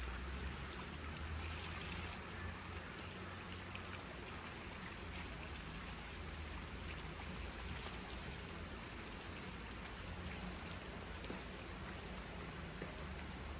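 Steady rush of flowing water with no distinct splashes or knocks.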